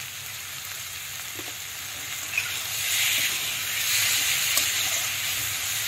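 Onions and tomatoes sizzling in hot oil in a metal kadhai as they are fried and stirred with a metal spatula, with a couple of light clicks. The sizzle grows louder about halfway through.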